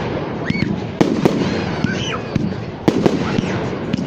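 Fireworks going off: a continuous crackling rumble with sharp bangs, the loudest about a second in and again near three seconds.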